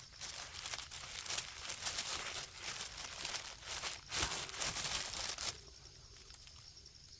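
Black plastic mulch film crinkling and rustling as a hand presses and handles it, with many small crackles, stopping about five and a half seconds in.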